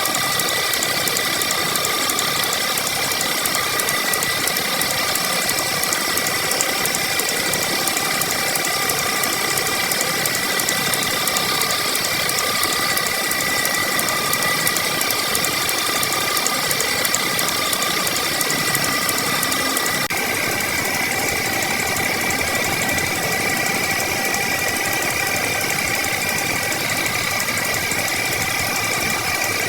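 A small motorised tool runs steadily with a fast rattling clatter and a steady whine. The sound shifts slightly about twenty seconds in.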